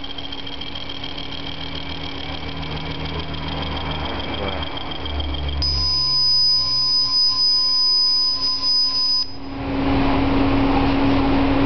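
Sei Laser Giotto 115 W CO2 laser engraver running while it engraves denim, a steady mechanical hum and whine. A clear steady high tone sounds for about three and a half seconds midway. From about nine and a half seconds a louder, fuller rush of noise takes over.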